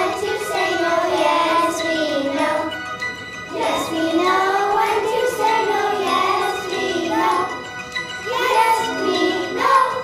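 Children singing a song into microphones over instrumental accompaniment, with a brief break in the singing about three and a half seconds in.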